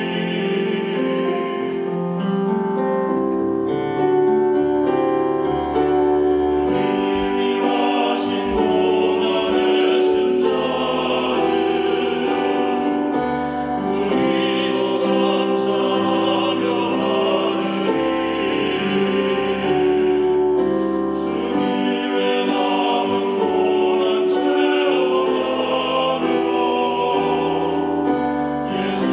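Three voices singing a gospel special song in a sustained, legato style over instrumental accompaniment.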